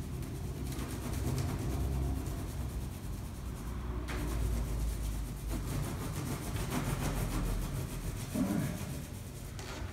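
Oil pastel rubbed back and forth on brown paper: a steady, rough scrubbing that rises and falls in loudness, over a low hum.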